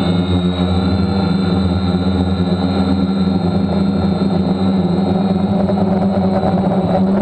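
DJI F550 hexacopter's six brushless motors and propellers running steadily in flight, heard from a camera mounted on the airframe: a constant, even hum.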